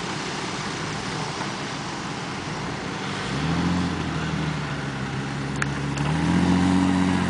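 A 4x4 SUV's engine driving over loose sand, its note rising and falling several times as it is revved. It comes in about three seconds in, over a steady hiss.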